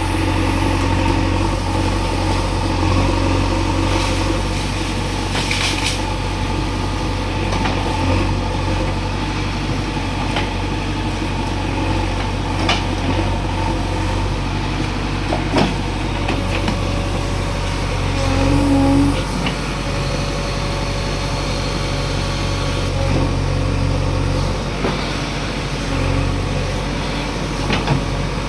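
JCB 3DX backhoe loader's diesel engine running steadily while the machine works. A few sharp knocks come through, and the engine swells louder for a moment about two-thirds of the way in.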